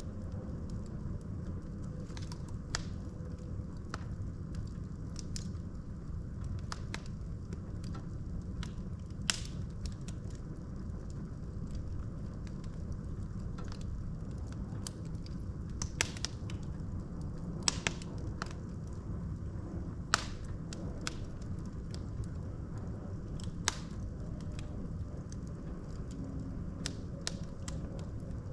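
Wood fire burning in a fireplace: a steady low rumble of the flames with scattered crackles and sharp pops from the burning logs, the loudest pops coming in the second half.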